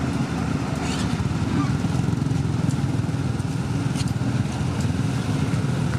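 Heavy truck engine running steadily at a constant speed, with a couple of faint ticks.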